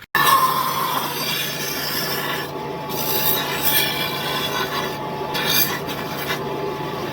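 Small power saw running steadily while it cuts through a wooden shelf board.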